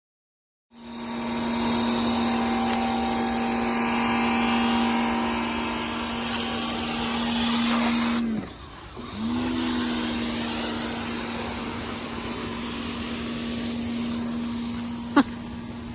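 Pressure washer running with a steady motor tone over a hiss of spraying water. About eight seconds in, the tone sags in pitch and level for about a second, then comes back up. A sharp click sounds near the end.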